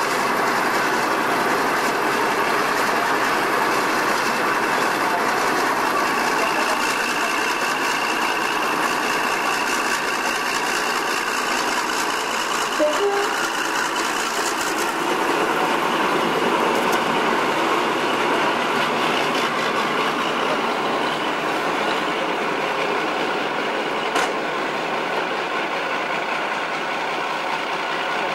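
Western class diesel-hydraulic locomotive D1013 'Western Ranger', its twin Maybach V12 diesel engines running steadily as it moves slowly along the track, with a couple of faint clicks midway and near the end.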